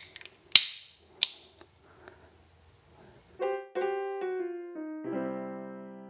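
Two sharp clicks from a red plastic Anderson connector being handled with a cable lug, then a short piano phrase: a few notes stepping down, ending in a held chord from about five seconds in.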